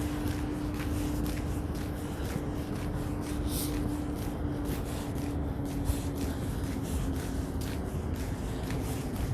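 Street traffic hum with a steady low vehicle tone that slowly fades, over footsteps scuffing and crunching through snow.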